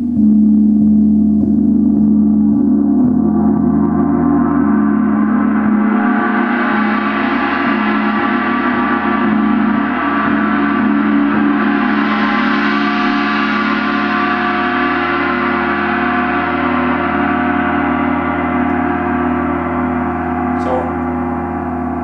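Large hanging gong played continuously with a soft felt-headed mallet in repeated strokes, the way it is played for a gong meditation. A deep hum holds underneath while the bright shimmer above swells to a peak about halfway through and then slowly eases.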